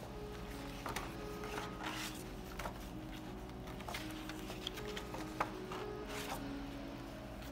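Large paper art prints being handled and slid over one another: several brief rustles and a few soft taps and clicks of paper.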